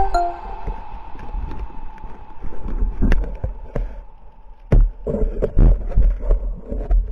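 Muffled underwater knocks and thumps picked up by a camera mounted on a speargun, as the gun and a speared fish are handled against it, over a low water rumble. The loudest thumps come in the second half.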